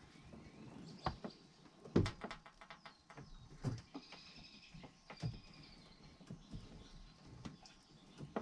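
Scattered light clicks and knocks, with a few faint high squeaks, as a Mercury FourStroke outboard is steered side to side by a freshly bled hydraulic steering system, turning smoothly lock to lock.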